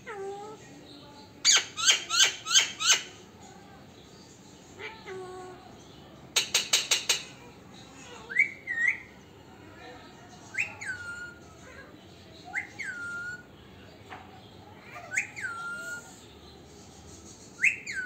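Alexandrine parakeet calling: two quick bursts of sharp, harsh calls, then a string of whistles about every two seconds. Each whistle jumps up, drops and holds a steady note.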